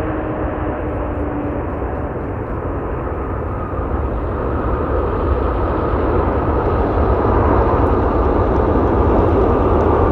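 Boeing 777 jet engines rumbling as the airliner lands and rolls out on the runway, a steady roar that grows louder from about four seconds in.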